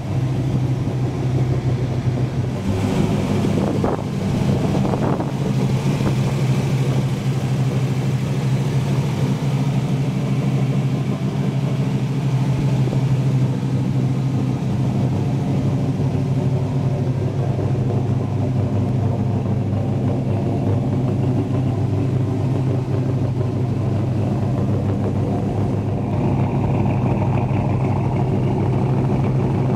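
Chevrolet 283 small-block V8, fitted with an aftermarket cam and headers, idling steadily. It grows a little fuller about four seconds before the end.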